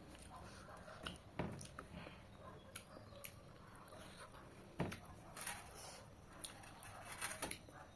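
Quiet eating sounds of a person chewing chicken curry, with scattered mouth clicks and smacks, the sharpest about a second and a half in and again near five seconds.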